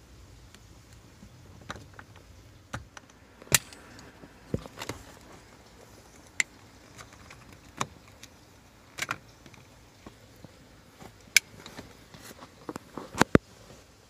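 Scattered sharp clicks and knocks of plastic and metal as the ignition switch and its wiring connector are worked loose from under the steering column, about a dozen in all, with a quick cluster of the loudest near the end.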